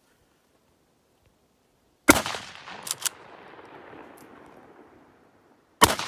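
Two rifle shots about four seconds apart from an 1889 Schmidt-Rubin straight-pull rifle firing 7.5x55 Swiss ammunition, each followed by a long rolling echo. Two quick sharp clicks of the bolt being cycled come a moment after the first shot.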